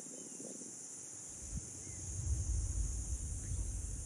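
A steady high-pitched insect drone, with a gusty low rumble of wind on the microphone coming in about halfway through.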